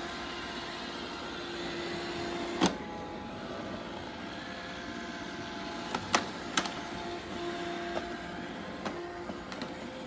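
iRobot Roomba robot vacuum running on carpet: a steady motor and brush hum with a faint whine. A few sharp clicks and knocks cut through it, the loudest about two and a half seconds in and two more around six seconds.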